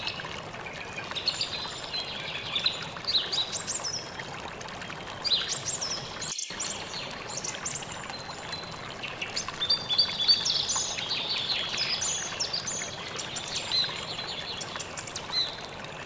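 Waterfall splashing into a rock pool, a steady rush of water, with many birds chirping over it. The sound drops out for a moment just after six seconds.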